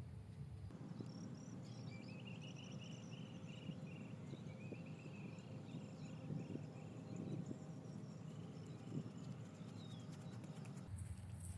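A bird calling in a run of short repeated chirps, about three or four a second, from about two to six seconds in, over a low steady outdoor rumble.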